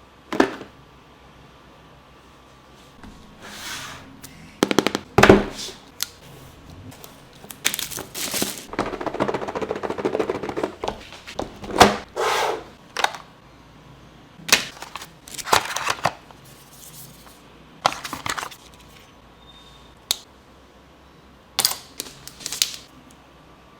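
Handling noises from unboxing a Vivo V27 5G phone: scattered sharp clicks, taps and knocks of the box and phone being handled, with a stretch of rustling packaging around the middle.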